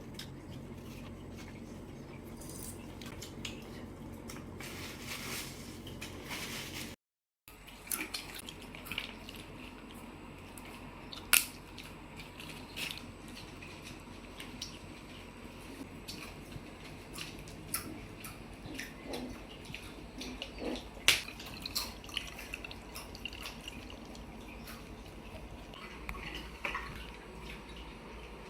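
Close-up eating sounds of seafood: chewing and smacking, with scattered sharp clicks and cracks of shells and utensils, two of them louder.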